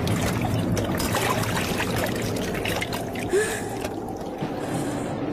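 Water poured from a small brass pot, splashing and trickling onto a brass plate, with one brief louder sound about three seconds in.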